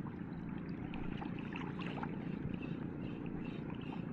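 Steady low rushing of water, with a few faint small ticks over it.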